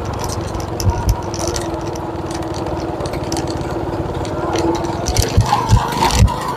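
Motorcycle engine running steadily while riding, with wind rumble on the microphone and light rattles that grow busier near the end.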